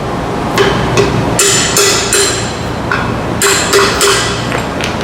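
A hand hammer striking the metal carrier bearing assembly on a Pontiac G8 driveshaft to knock it loose: about ten sharp blows, roughly two or three a second, each with a short metallic ring, with a brief pause near the middle.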